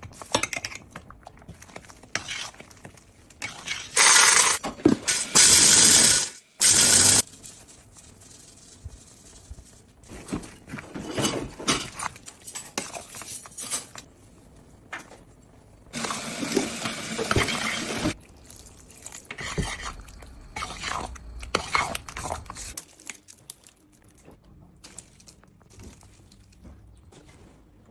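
Kitchen food-preparation sounds: liquid splashing in several loud bursts of a second or two, with clinks and knocks of dishes in between.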